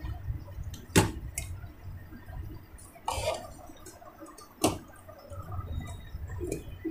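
Plastic back cover of an LED TV being pried and lifted loose by hand: three sharp clicks of the plastic and its clips, the loudest about a second in, and a brief scrape about three seconds in.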